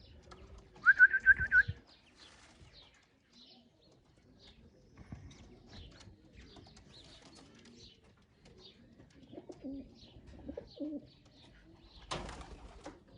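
Pigeons cooing softly at a loft, with a quick loud run of five or six high chirps about a second in and a short rustling burst near the end.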